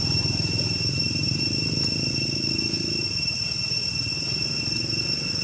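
Steady, unbroken high-pitched insect drone over a low rumble.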